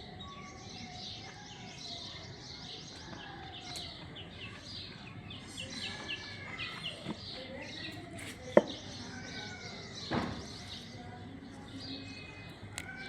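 Small birds chirping and twittering in quick, repeated short notes, with a single sharp click about two-thirds of the way through.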